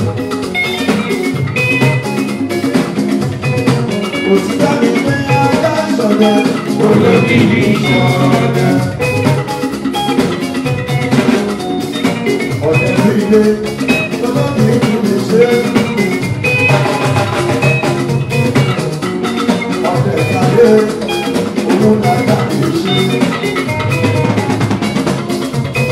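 Band music with drums, percussion and guitar playing continuously at a lively beat.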